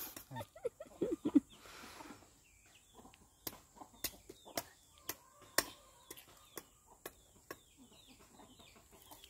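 A green tender coconut's husk being chopped with a blade held in the hand: a string of sharp chops at irregular intervals, roughly one every half second to second. Chickens cluck in between.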